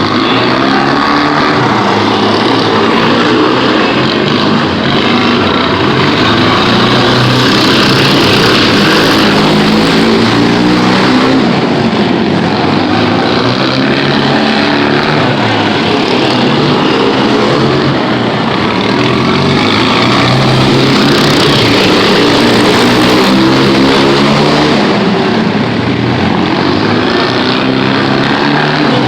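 Several racing lawn mowers with twin-cylinder flathead engines running together, their engines revving up and down as they race.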